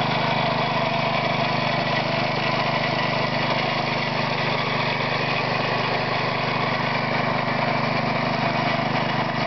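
Home-built air compressor made from a 3.5 hp Briggs & Stratton push-mower engine, running steadily and pumping air into its receiver tank, with an even low hum.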